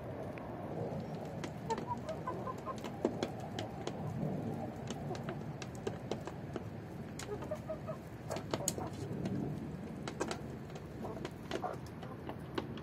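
Flock of Lori (Golin) chickens giving soft clucks and short chirping calls, with frequent sharp taps and clicks throughout.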